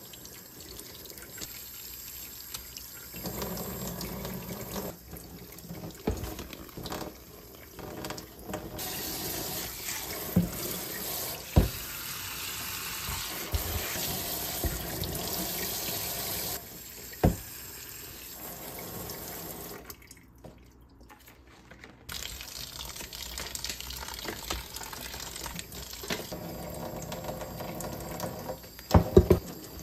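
Kitchen faucet running onto leaves and into a stainless steel sink as potted plants are rinsed, the splashing changing as they are moved under the stream. The water sound drops away for a couple of seconds about two-thirds through, and a few sharp knocks stand out.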